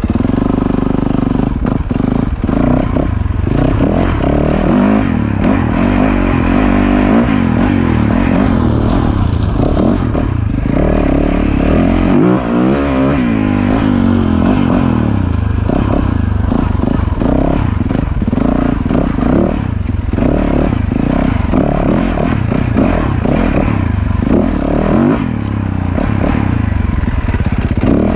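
Yamaha YZ450FX dirt bike's 450 cc single-cylinder four-stroke engine, held in first gear and revving up and down as the bike works along rough trail. Frequent short knocks and rattles from the bike run under the engine.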